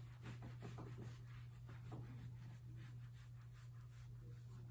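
Faint, irregular scratching of a pen writing, over a steady low electrical hum.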